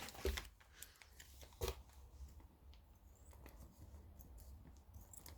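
Faint snips and clicks of scissors working at a plastic saw-chain packet, with one sharper click about a second and a half in.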